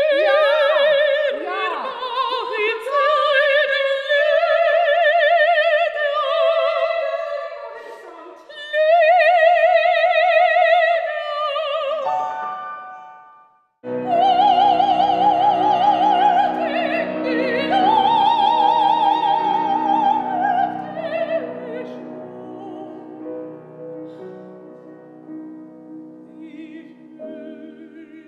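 A female operatic voice sings long, held phrases with wide vibrato. After a brief break about halfway, a sung line resumes over sustained accompaniment, growing softer toward the end.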